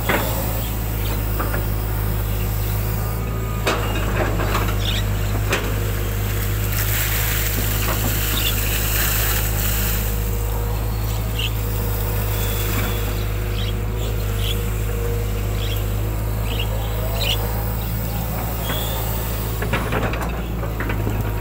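Hitachi hydraulic excavator's diesel engine running steadily while it digs. Its pitch rises and falls as the hydraulics take load, with a few sharp knocks from the bucket and arm.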